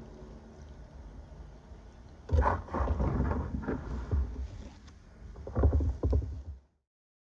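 Kayak paddle strokes and water splashing, in two spells of several strokes: one a couple of seconds in and another near the end. The sound then cuts off abruptly.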